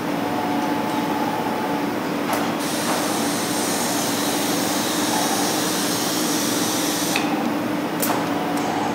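Stäubli robot arm and pallet conveyor cell running: a steady machine hum with a constant low tone. A higher hissing whir rises for about four seconds in the middle while the arm swings to the turntable and back, and a sharp click sounds near the start and again near the end.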